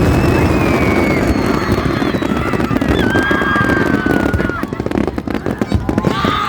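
Fireworks display: a dense, continuous rumble of shell bursts with crackling, which turns into sharper, more separate crackles in the last second or two. Long held high tones run over it.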